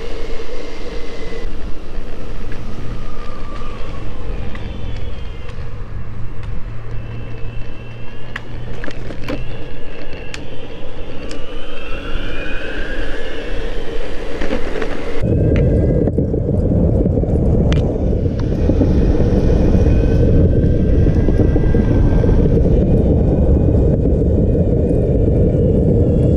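Boosted Board electric skateboard at speed: wheels rumbling on asphalt, with the electric motor's whine rising and falling as it accelerates. About fifteen seconds in, it switches abruptly to a louder, rougher rumble of the wheels on a concrete sidewalk, with a steadier whine.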